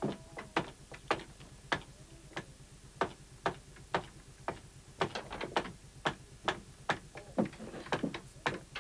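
Sharp, short knocks repeating about twice a second, with a quicker flurry of them about five seconds in.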